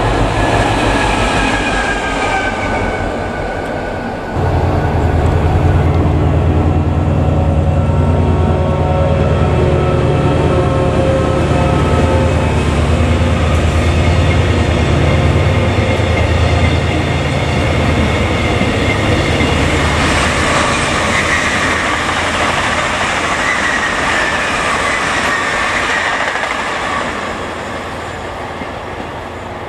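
A Class 60 diesel freight locomotive passes with its engine note falling for the first few seconds. Then a TransPennine Express Class 68 diesel locomotive with Mark 5A coaches passes close by at speed: first a loud, steady, low engine drone, then the coaches rolling by with a higher whine that fades near the end.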